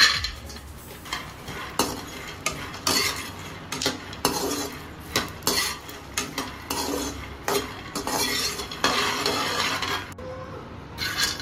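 Raw peanuts poured into a dry metal kadhai with a loud rattle, then stirred and scraped around the pan with a metal spatula as they dry-roast: repeated uneven scraping strokes with the nuts clattering against the metal.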